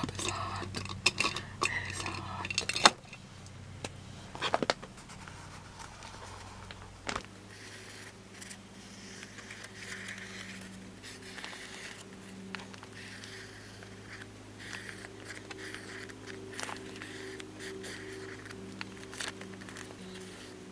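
Clicks, taps and rattles of craft supplies being picked up and handled on a cluttered tabletop. From about seven seconds in this gives way to a faint bed of several low, steady held tones, with light scratching and ticks as a marker colours a paper page.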